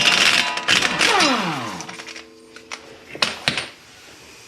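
Impact wrench with a 32 mm socket hammering loose the front axle nut. It runs loudly, then winds down in falling pitch once the trigger is released. Two or three sharp metallic clinks follow near the end.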